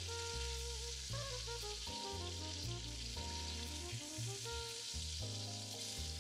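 Chicken breast pieces frying in oil in a hot cast iron pot: a steady sizzle, over background music with a slow bass line.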